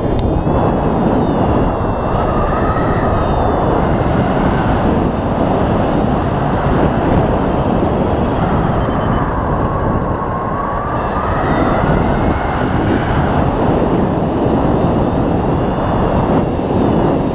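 Loud, steady wind rushing over an action camera's microphone in paraglider flight, with a faint whistling tone that drifts slowly up and down in pitch.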